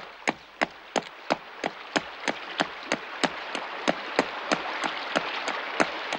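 Cartoon sound effect: light wooden taps, evenly spaced at about three a second, over a faint hiss.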